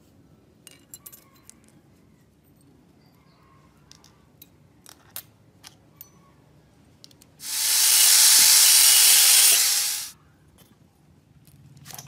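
Small rusty metal parts of a children's bicycle caliper brake clicking and clinking as they are handled and set down. Then a loud, steady hiss starts abruptly, lasts about two and a half seconds and cuts off.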